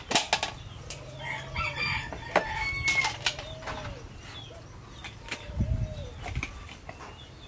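A rooster crowing and chickens clucking, over sharp clicks and taps of plastic jars, lids and a scoop as granular peanut salt is packed into jars.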